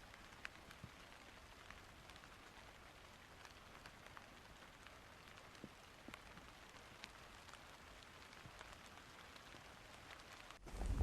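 Faint light rain: a steady hiss with scattered small drop ticks. Just before the end it gives way to a much louder rush of noise.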